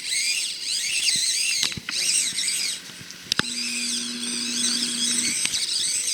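Axial SCX24 micro crawler's small electric motor and gears whining, the high pitch rising and falling over and over as the throttle is worked, with a short break about two seconds in and again just past the middle. A low steady hum sits under it for about two seconds in the second half.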